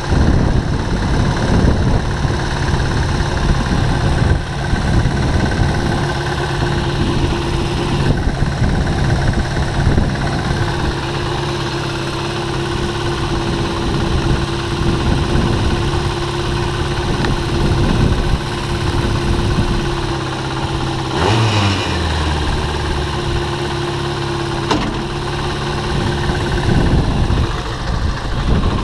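Suzuki GSX-R 600 inline-four motorcycle engine in an off-road buggy idling steadily, with a brief shift in pitch about two-thirds of the way through.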